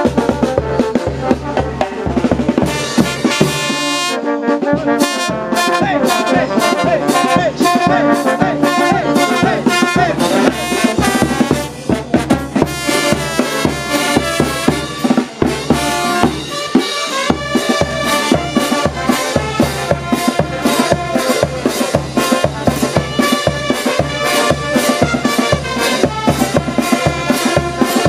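A brass band playing a lively tune: saxophones, trumpets, trombones and sousaphones over a bass drum, snare drum and clashed hand cymbals keeping a steady beat. The drums drop out briefly about four seconds in and again near the middle.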